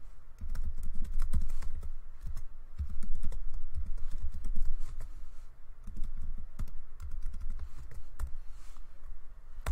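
Typing on a computer keyboard: an irregular run of key clicks as a line of code is entered.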